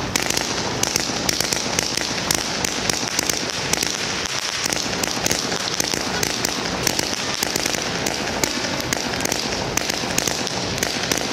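A 61-shot red report repeater cake firing: a rapid, unbroken barrage of sharp reports over a constant crackle, shot after shot with no gap.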